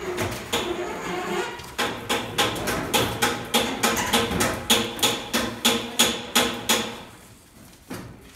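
Rhythmic knocking on a tipped-up ballot box as it is emptied of ballot papers, about three sharp knocks a second for some five seconds, stopping near the end.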